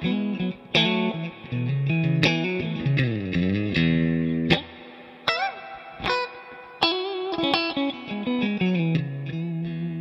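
Fender Custom Shop Stratocaster electric guitar playing a picked lead line of single notes. About three seconds in, a note is bent and held with vibrato for about a second, then the picked phrases go on.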